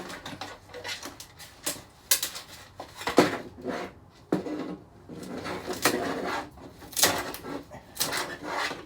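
Plastic back cover of a flat-screen TV being worked loose and handled: irregular clicks, knocks and clatters of plastic on plastic, some sharp and loud, spaced about a second apart.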